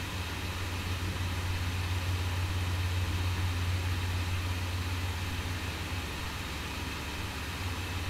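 GeForce GTX 1080 Ti Founders Edition blower cooler fan running at 80% speed, heard through the closed case door: a steady rush of air with a low hum underneath.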